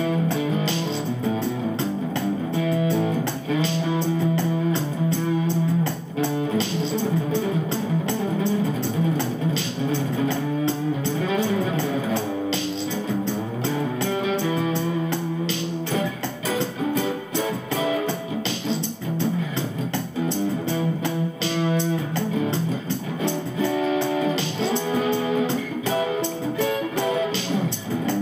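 Acoustic guitar played through an overdrive pedal and a small ten-watt amplifier: a picked melody over held low notes.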